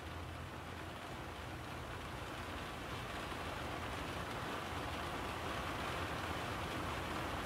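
A steady rushing hiss with a low rumble beneath it, growing slowly louder.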